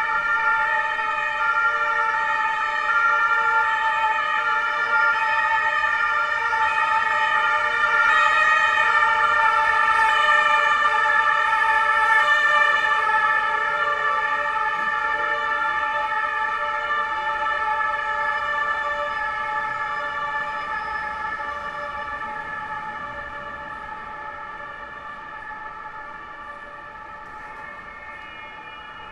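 German police two-tone siren (Martinshorn) alternating steadily between its two notes. It grows louder to a peak about a third of the way in, then fades away over the second half as the vehicle moves off.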